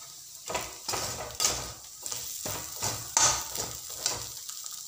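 A perforated metal skimmer spoon scraping and stirring a mashed potato and paneer mixture around a metal kadhai. It comes as a run of quick, uneven strokes, about two or three a second, that stop near the end.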